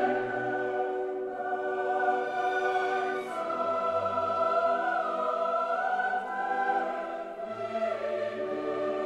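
Background choral music: voices singing long held notes, shifting to a new chord every second or two.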